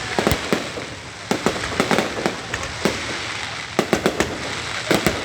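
Aerial fireworks display: shells bursting in clusters of sharp bangs, several close together, over a continuous haze of noise.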